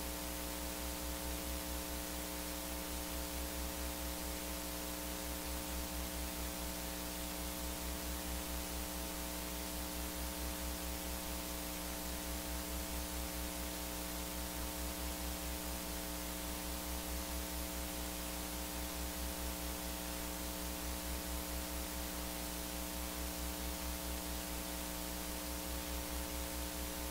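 Steady electrical mains hum, a low buzz with a row of higher overtones, under an even hiss from the church's sound system or recording chain.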